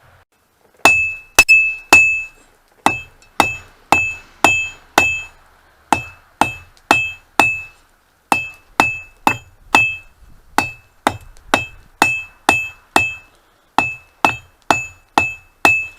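Hand hammer striking hot mild steel on an anvil, drawing the bar out to a point: sharp blows at about two a second in runs of three to five with short pauses, each with a bright, high anvil ring.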